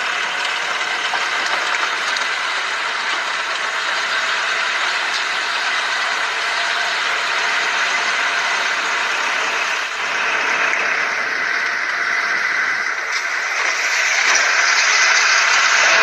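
Steady vehicle engine and road noise from heavy trucks on a dirt logging road, growing a little louder near the end.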